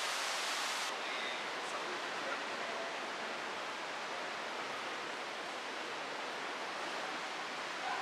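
Steady rush of water: a waterfall spilling into the fast glacial Aare river, then, after a cut about a second in, the river rushing through the narrow gorge, the hiss a little less bright.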